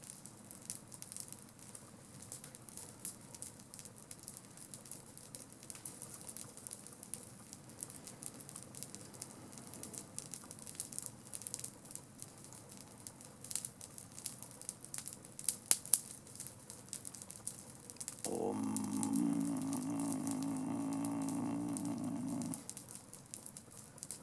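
Campfire crackling with scattered small pops and a couple of sharper ones. About three-quarters of the way through, a louder steady hum comes in for about four seconds, then stops.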